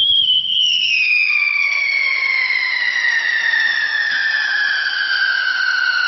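Whistling smoke UFO firework launching and climbing: one loud whistle that comes on suddenly and slowly falls in pitch as it rises.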